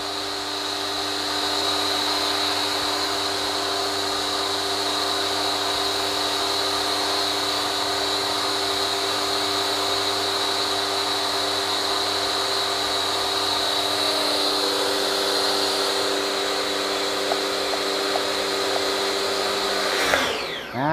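Bosch EasyAquatak 120 electric pressure washer running steadily with a hum and a high whine while its pump fills with water. It winds down and stops about twenty seconds in, the sign that the pump is full and the machine is ready for full pressure.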